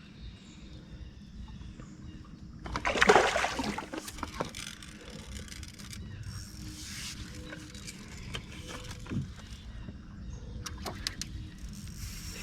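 Quiet outdoor ambience in a small boat during a trout fight: a steady low rumble, a brief rushing splash-like burst about three seconds in, and scattered faint clicks, with a small cluster near the end.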